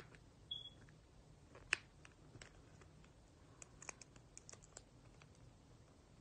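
Faint clicks and taps of clear plastic packaging being handled and pried at by fingernails. There is a short squeak about half a second in, one sharper click just before two seconds, and a run of small clicks around four to five seconds in.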